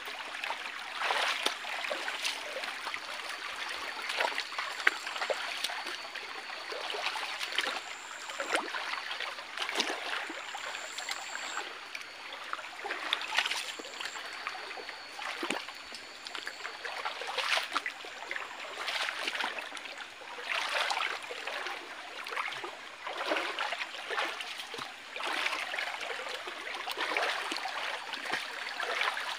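Shallow rocky stream running, with irregular splashing of feet wading through the water.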